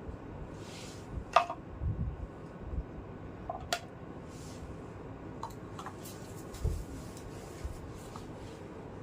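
Small plastic toy kitchen pieces being handled: a few light, sharp clicks and taps, two of them sharper in the first four seconds, with dull low knocks and soft rustling in between.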